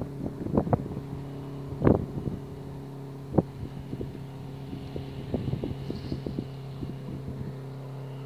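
A steady low engine hum with scattered knocks and clicks over it; the loudest knock comes about two seconds in.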